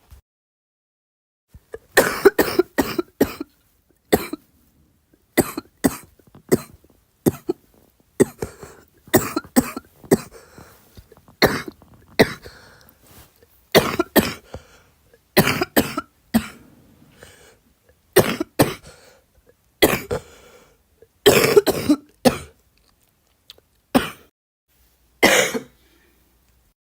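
A girl coughing over and over, in bouts of several quick coughs each with short pauses between them.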